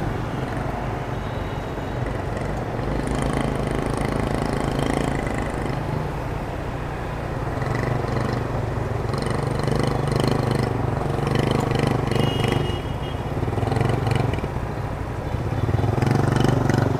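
Motorbike engines running steadily in street traffic, with a low hum that swells a little now and then and some light rattling.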